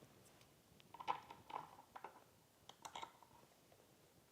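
Faint clicks and light taps of small hand tools and metal fender hardware being handled while the front fender is bolted on, a handful of short knocks spread through the stretch.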